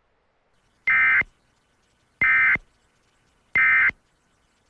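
Emergency Alert System end-of-message (EOM) data bursts: three short, identical digital tones a little over a second apart, marking the close of the alert message.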